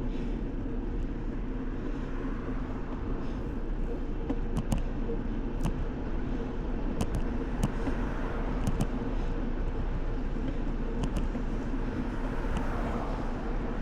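Riding a bicycle on the road: wind rushing over the action camera's microphone and a steady hum from the tyres, with scattered light clicks and rattles from the bike.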